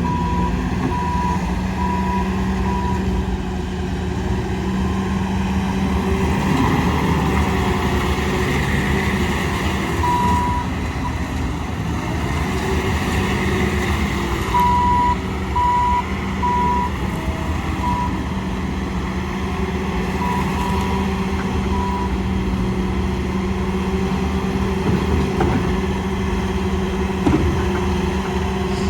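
Bobcat S590 compact skid steer loader's diesel engine running steadily, with its backup alarm beeping in several short runs of evenly spaced beeps as the machine reverses.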